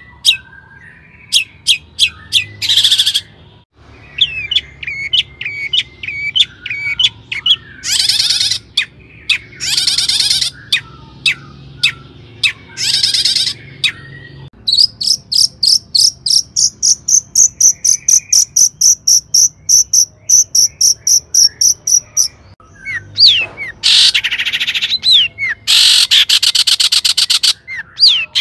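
Long-tailed shrike (cendet) singing a varied song of sharp ticking notes and harsh rasping chatter. In the middle comes a long run of rapid repeated high notes, about five a second, and near the end a few quick down-slurred whistles.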